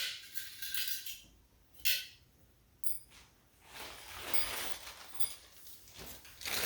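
Small metal quilting-frame clamps clinking against each other as they are handled, a few separate light clinks with a softer rustle of handling in between.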